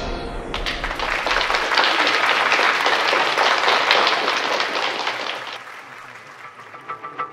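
Audience applauding, then dying away after about five seconds. The preceding show music fades out in the first second or so, and new music starts near the end.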